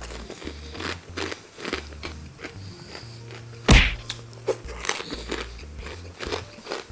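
Background music with a steady low beat, under close-miked crunching and chewing of crispy chicharon (fried pork rind). A sharp loud thump comes about three and a half seconds in.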